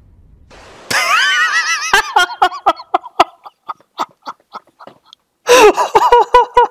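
A man laughing hard: a high, wavering laugh about a second in, breaking into a run of short gasping laugh pulses, then another loud burst of laughter near the end.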